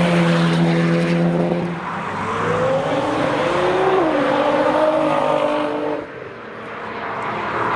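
Modified car's engine under throttle as it pulls away: a steady note for about two seconds, then the revs climb and waver, and the sound drops off about six seconds in.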